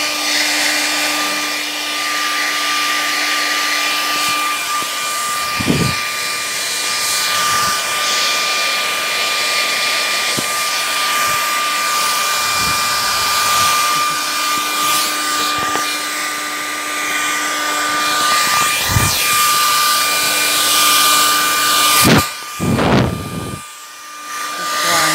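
Hair dryer blowing steadily with a high whine, aimed at a tent's fabric to dry it out. A few low thumps come from handling, and the blowing drops away briefly near the end.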